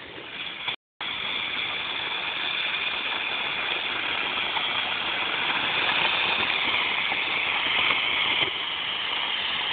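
Homemade smoke bomb burning with a steady hiss as smoke jets out of it; the hiss comes up within the first second, cuts out for an instant about a second in, then holds, growing slightly louder.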